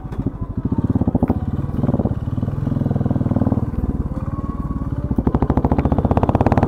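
Royal Enfield Bullet Classic 350's single-cylinder engine thumping as the bike rides off, its steady beat picking up and growing louder about five seconds in as the rider opens the throttle.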